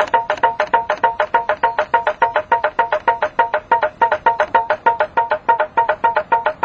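Large home-made pop-pop engine built from old tin cans and brake pipe, running on a test bed: a very noisy, even pop-pop of about seven sharp pops a second, each ringing at the same pitch.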